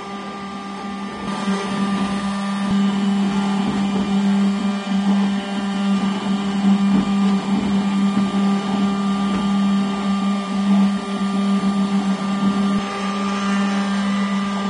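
ShopBot Desktop CNC spindle running at a steady pitch while its bit cuts grooves into a wooden board. It gets louder about a second in.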